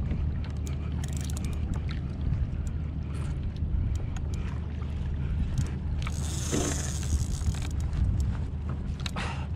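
Wind rumbling on the microphone and water sloshing against a sit-on-top kayak at sea, with a couple of short swishes, about six seconds in and near the end.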